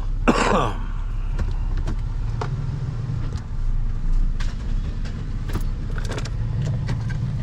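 Vehicle engine idling with a steady low hum, with scattered light clicks and rattles. There is a brief sliding squeak-like sound just after the start.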